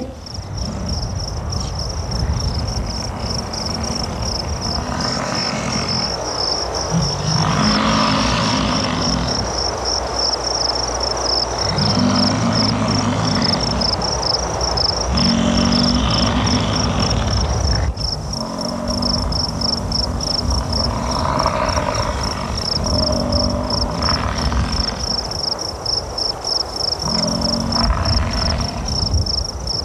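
Insects chirring steadily in a fast, high pulse, with a series of low bellows from American bison, about nine in all, each lasting a second or two.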